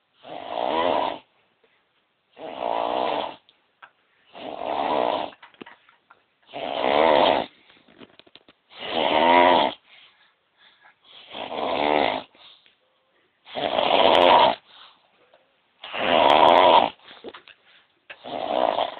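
Loud snoring: nine rattling snores, each about a second long, repeating evenly about every two seconds.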